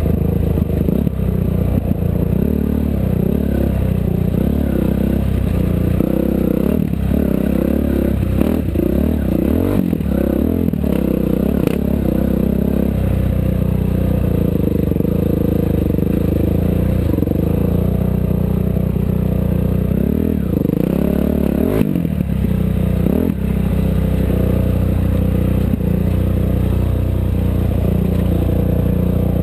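Off-road race vehicle's engine running hard, its pitch rising and falling again and again as the throttle is worked, with rattling and a few sharp knocks from the vehicle jolting over rough ground.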